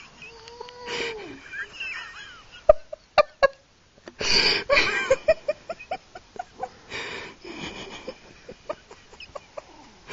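Stifled, breathy giggling: snorting puffs of air and short pulsed laughs, with a few sharp mouth clicks about three seconds in.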